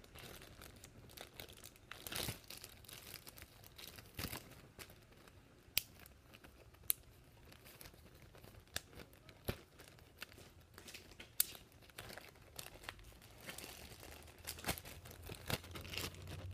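Homemade slime being squished and pulled by hand, giving faint, irregular sticky pops and clicks.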